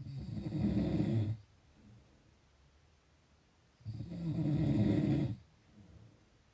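A sleeper snoring: two loud snores about four seconds apart, each lasting about a second and a half, each followed by a faint breath.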